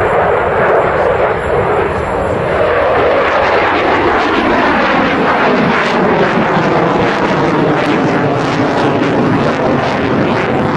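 Jet noise from an F-16A Block 15 fighter's Pratt & Whitney F100 turbofan during a low display pass: a loud, steady rushing rumble that turns ragged and crackling from about halfway in.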